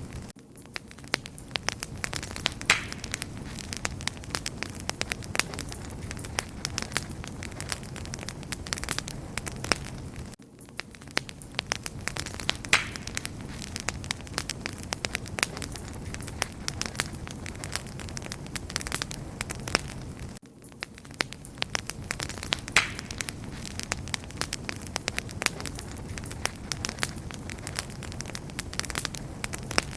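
Campfire crackling: many sharp snaps over a steady low rush of flames. The same stretch repeats about every ten seconds, with a brief drop in level at each join.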